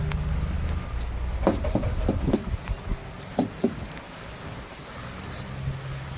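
Road train's diesel engine running, heard from inside the cab, with a quick string of sharp clicks and knocks about one and a half to three and a half seconds in.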